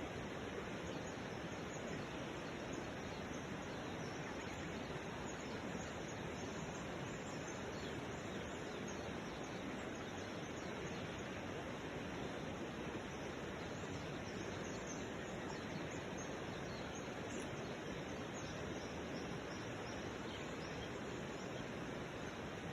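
Steady hiss of outdoor background noise, with faint, brief high-pitched chirps scattered through it.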